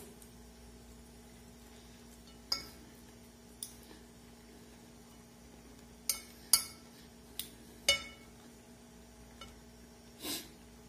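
Metal fork clinking against a ceramic plate: about seven sharp clinks at uneven gaps.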